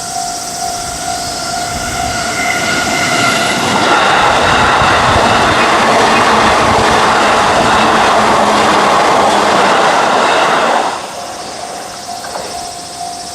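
A Japanese level-crossing alarm rings steadily while a JR Yokohama Line electric train runs through the crossing. The train noise builds from about two seconds in, stays loud for about seven seconds and drops away suddenly near the end, leaving the alarm still ringing.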